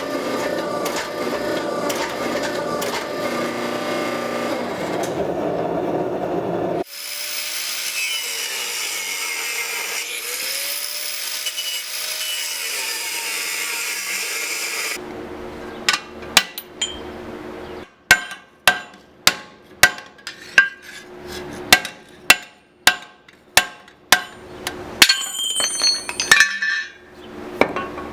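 A steady mechanical running sound for the first several seconds, then a hiss with gliding whistle-like tones, then a hand hammer striking hot steel on an anvil, about two ringing blows a second for around ten seconds.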